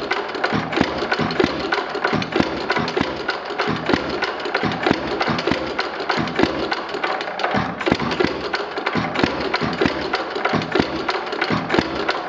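Ideal Model R 3/4 hp buzz-coil-fired hit-and-miss engine running, a continuous clatter of irregularly spaced firing knocks and mechanical clicks, with its belt-driven cooling fan blowing over the cylinder. It runs unevenly because it is still very cold.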